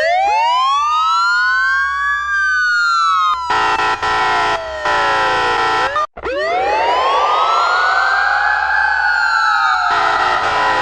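Fire truck siren winding up in a rising wail and slowly falling, layered at several pitches, with two air-horn blasts over it about three seconds in. After a sudden cut the siren winds up again, rougher and louder, and the horn comes back in near the end.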